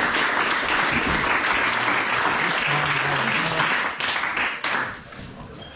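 Small audience clapping, with a brief shout mixed in, dying away about four to five seconds in.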